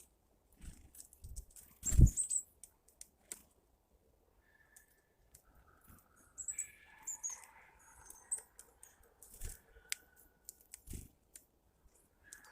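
Birds heard close to the microphone: scattered sharp pecking taps and knocks, with one louder thump about two seconds in, and short high chirps and softer calls in the second half.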